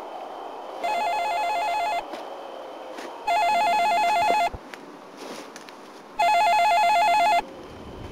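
Mobile phone ringing with an electronic warbling trill, three rings of about a second each with quieter gaps of about a second and a half between them.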